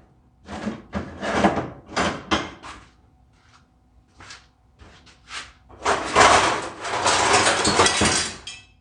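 Metal parts clattering and knocking: several short knocks in the first few seconds, then a rougher, longer noise of about two seconds near the end.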